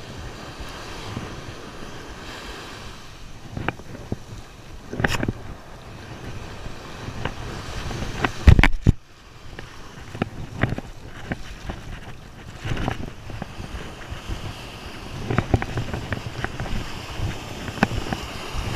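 Ocean surf washing and breaking at the shoreline, with wind buffeting the microphone. Scattered sharp knocks run through it, and there is one loud bump about eight and a half seconds in.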